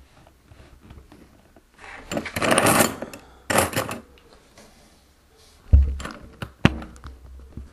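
Rustling and bumping as a backpack is shifted about and propped up, in two stretches of scraping and shuffling, then two heavy knocks about a second apart near the end.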